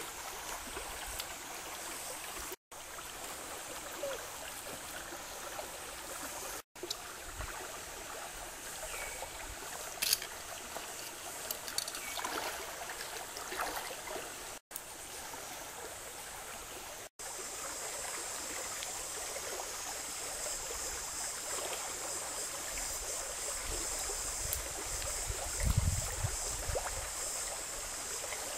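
Shallow stream running over rocks, a steady rushing and trickling, with a few faint clicks and a low thump near the end. The sound drops out for an instant four times.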